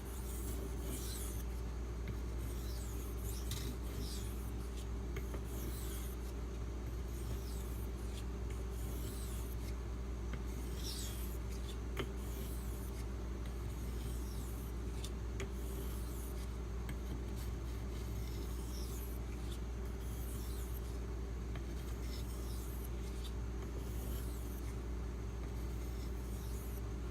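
Knife edge of a Maxamet-steel Spyderco Manix 2 drawn across a 2500-grit silicon carbide whetstone in alternating passes: light, irregular rasping strokes on each side of the blade, the final finishing stage. A steady low hum runs underneath.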